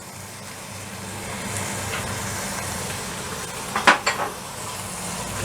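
Onions, meat and spices frying in oil in a cooking pot, sizzling steadily as garlic, ginger and lemon zest go in. A utensil clinks against the pot two or three times about four seconds in.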